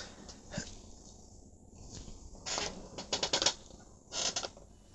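Handling noise from working on an opened radio: small clusters of light clicks and rattles, a brief one about half a second in, a busier run between two and a half and three and a half seconds, and another just after four seconds.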